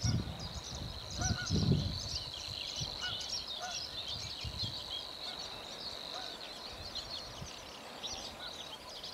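Savi's warbler reeling: a steady, even, high-pitched buzzing trill held for about six seconds and then stopping. Other small birds chirp over it throughout, with a few lower calls and a couple of low, heavier sounds in the first two seconds.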